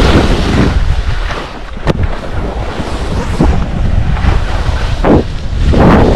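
Strong wind buffeting the microphone in a low, steady rumble, with a few louder swooshing surges near the start and twice near the end.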